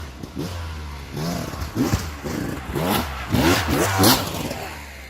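Beta 300RR two-stroke dirt bike engine revved in a series of short bursts, its pitch sweeping up and falling back several times, with sharp knocks about two seconds in and again near four seconds.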